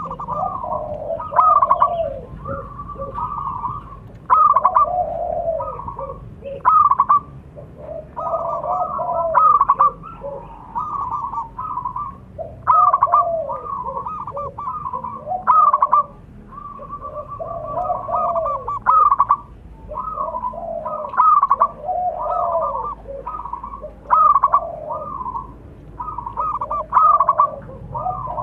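Zebra doves (perkutut) calling: repeated cooing phrases of quick staccato notes that come again every few seconds.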